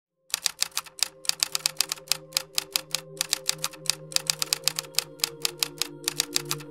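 Typewriter keys clacking in a quick, slightly uneven run of about six strokes a second, starting just after the beginning, over a soft sustained ambient music drone.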